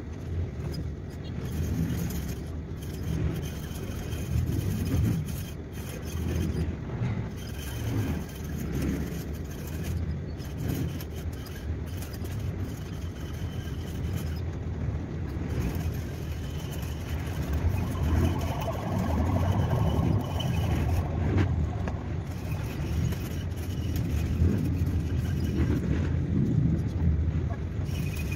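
Okuma Cavalla fishing reel being cranked to wind line onto its spool: a low whirring rumble that rises and falls unevenly.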